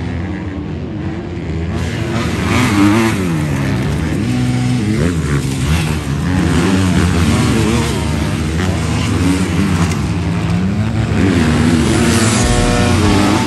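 Motocross bike engines revving hard, the pitch climbing and dropping again and again with the throttle as the bikes race around the dirt track.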